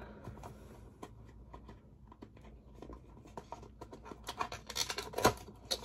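Hands working at the packaging of a small skincare brush attachment: faint scratching and clicking, which turns into a busy run of scratches and clicks about four seconds in, with one sharp knock just after five seconds.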